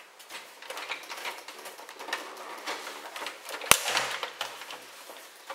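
Plastic casing of a Sony CFD-112 CD radio cassette player clicking and rattling as its front cover is worked loose, with one sharp click a little past halfway.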